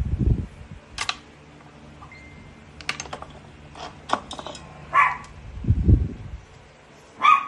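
Irregular clicks and taps of small objects being handled on a workbench, with a few low knocks and short sharper sounds.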